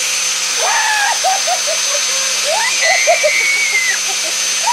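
A motor running loud and steady: a rushing noise with a thin high whine held over it. Short muffled voice-like sounds come and go over the noise.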